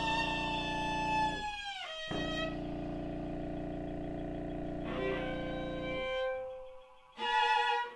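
Contemporary chamber music for viola, contrabassoon and Korg Kaossilator. A held high tone slides downward and breaks off after about two seconds over a steady low drone. Later a single sustained tone sounds, the drone drops out about six seconds in, and a loud, richer sound enters near the end.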